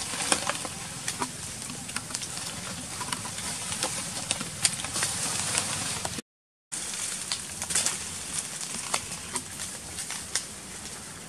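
Outdoor ambience in dry leaf litter: a steady hiss with scattered small clicks and rustles, broken by a half-second of silence just past the middle.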